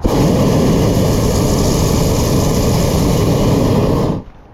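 Hot air balloon's propane burner firing one blast of about four seconds, heating the air in the envelope; it starts and cuts off abruptly.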